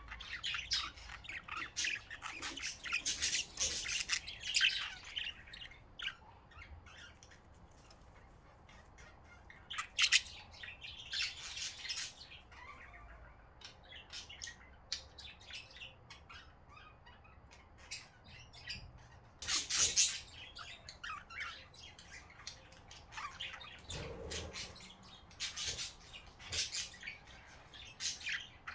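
Budgerigars chirping and squawking: dense chatter at first, then scattered calls, with sharp, loud calls about ten seconds in and again around twenty seconds.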